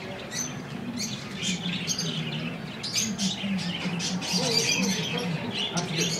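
Caged pet birds chirping and tweeting, many short high calls following one another without a break.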